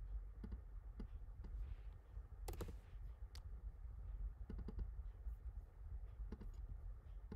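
Scattered clicks from computer input as a diagram is drawn, sometimes singly and sometimes a few in quick succession, over a steady low hum.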